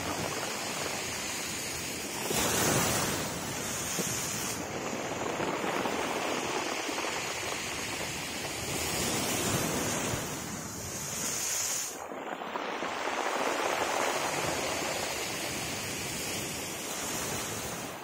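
Sea waves surging and breaking against a stone seawall, a continuous rush of surf and spray that swells louder three times as waves hit the wall.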